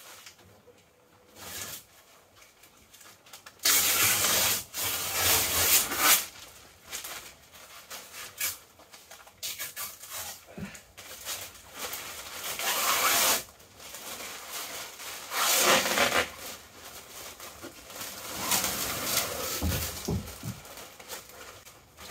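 Peel ply being ripped off a cured epoxy-fibreglass laminate in several long tearing bursts, the longest and loudest a few seconds in, with rustling of fabric and plastic sheeting between. It is the stage of stripping the peel ply after the epoxy has cured.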